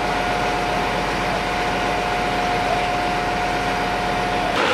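An engine running steadily, with a steady high whine over it; it cuts off abruptly just before the end.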